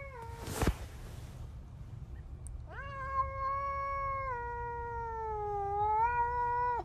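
A cat's long, drawn-out yowl, a territorial caterwaul at another cat just the other side of a window, held for about four seconds on a steady pitch that sags a little and rises again near the end. Before it, just under a second in, comes a single sharp thump.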